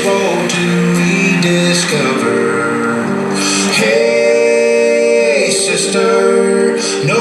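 Music: a song with male singing over guitar.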